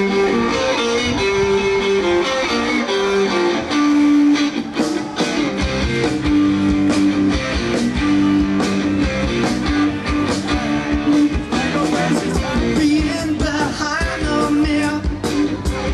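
Live rock band playing: an electric guitar riff opens, and drums and bass come in with a steady beat about five seconds in.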